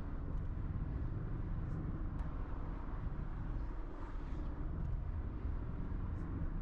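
Steady rumble of a car driving along the road: tyre and engine noise, constant throughout.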